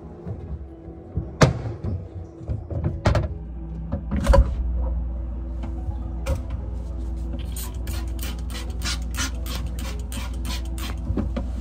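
Trigger spray bottle squirting cleaner, quickly and repeatedly, about three or four sprays a second in the second half, after a few separate louder sprays or knocks earlier on. A steady low hum runs underneath from about halfway through.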